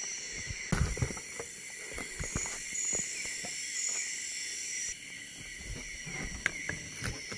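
Steady high-pitched chorus of night insects in tropical forest, with a few close knocks and rustles.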